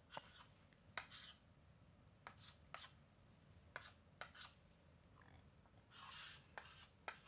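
Faint chalk on a chalkboard: short taps and scraping strokes as lines and arrows are drawn, with a longer scrape about six seconds in.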